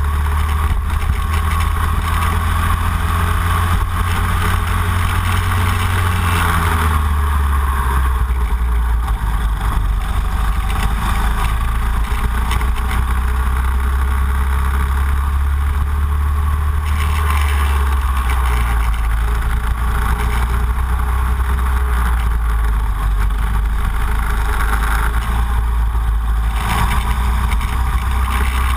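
Racing kart engine running hard at speed, heard onboard with heavy wind buffeting on the camera microphone; the engine note drops and picks up again a few times as the kart lifts and gets back on the throttle.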